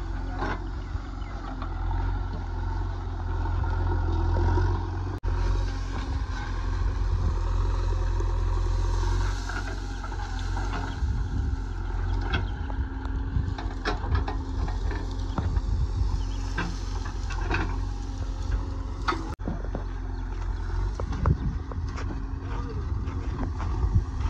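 JCB 3DX backhoe loader's diesel engine running steadily under load while the backhoe arm drags piles of dry brush, the engine getting louder a couple of times in the first half. Short cracks and knocks of branches and the arm's linkage come through over the engine.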